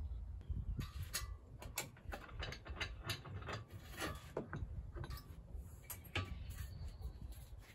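A run of irregular sharp clicks, a few a second and ratchet-like, from hands working a long aluminium extrusion with a small hand tool.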